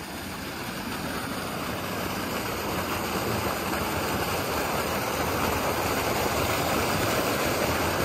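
Small mountain waterfall rushing and splashing down a rocky channel, a steady water noise that grows louder over the first few seconds and then holds.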